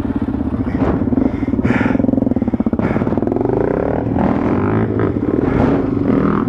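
Dual-sport motorcycle engine running under load, its revs climbing a little past halfway and then settling, with some knocks and clatter.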